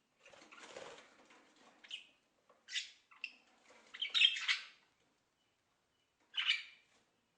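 Parrot calling: soft chatter at first, then three harsh squawks spaced apart, the loudest about four seconds in.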